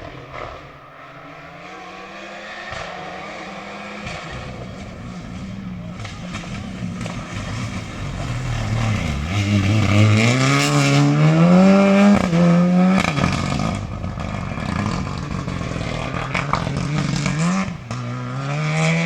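Rally car engine coming closer at full throttle, getting steadily louder and loudest about ten to twelve seconds in. Its pitch climbs and drops several times as it shifts gears, then climbs again near the end.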